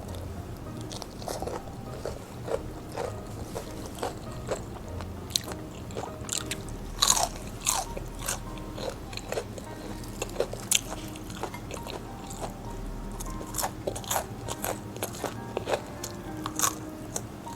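Close-up biting and chewing of crispy fried chicken, with crunches and crackles of the fried crust at an irregular pace.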